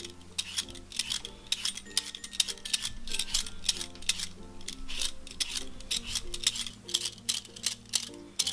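Metal Y-peeler scraping the skin off a red potato in quick repeated strokes, about three or four short rasps a second, over background music with held low notes.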